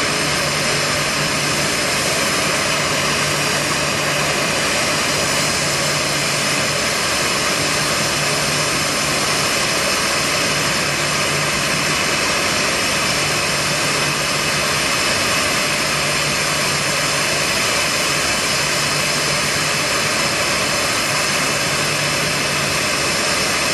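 A Boeing 737-800's two CFM56-7B turbofan engines idling steadily after start-up: a high whine over a steady low hum.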